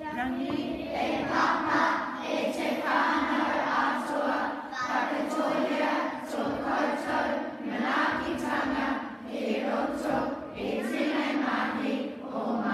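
A group of children's voices reciting a Māori karakia (prayer) together in unison, led by a girl on a microphone. They chant in phrases of a second or two on a nearly steady pitch, with short breaths between the phrases.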